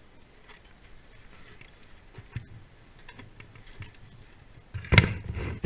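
Close-up handling noise from hands at work in a roof valley: scattered light clicks and taps, then a louder, rough scrape and rustle lasting under a second, near the end.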